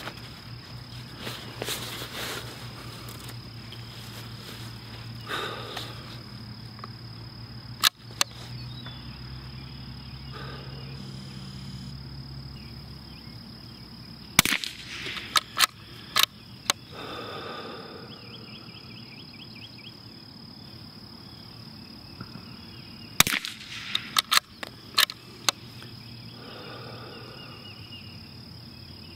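CZ 457 Pro Varmint bolt-action .22 LR rifle firing Eley 40-grain match rounds: sharp shots a few seconds apart, bunched in three groups, with quieter clicks among them.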